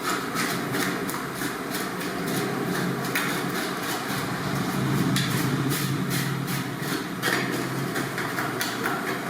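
A meat cleaver chopping pork on a wooden block: repeated sharp knocks, irregular at about two to three a second, over a steady low engine or traffic hum.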